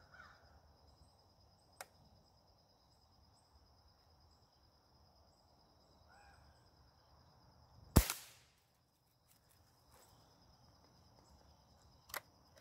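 A single shot from a B3-1 spring-piston air rifle in .177: one sharp crack about eight seconds in, with a short ring after it. A smaller click comes near the end.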